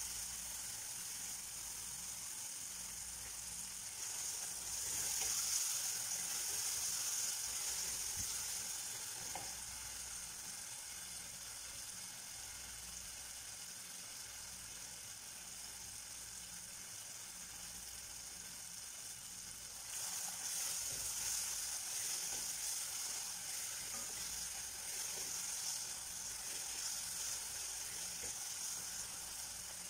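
Chopped tomatoes and onions sizzling in oil in a pan as a tomato sauce cooks down, stirred now and then with a wooden spatula. The sizzling gets louder for a few seconds about four seconds in and again from about twenty seconds in.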